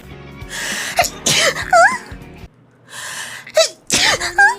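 A person sneezing twice. Each sneeze is a breath in, a sharp burst, and a high-pitched voiced squeak that sweeps up and down in pitch; the first comes about a second in and the second near the end.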